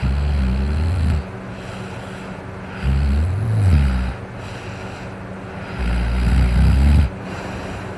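A person snoring in a drunken sleep: three long, low, rumbling snores about three seconds apart, each lasting a little over a second, with quieter breathing between.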